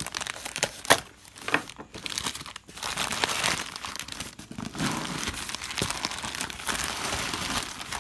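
A knife slitting packing tape and cardboard with a few sharp snaps, then black plastic wrapping crinkling continuously as a cardboard box is handled inside it.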